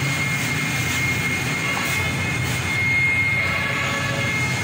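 Steady mechanical drone with a thin, steady high whine over a low hum, swelling slightly about three seconds in.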